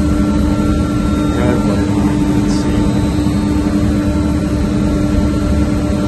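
Steady loud drone of machinery running in a chiller plant room, with a constant hum over a low rumble.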